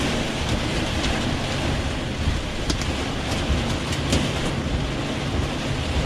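Heavy rain beating on a vehicle's roof and windshield, heard from inside the cab as a dense steady hiss with scattered sharper drop impacts, over the low rumble of the moving vehicle.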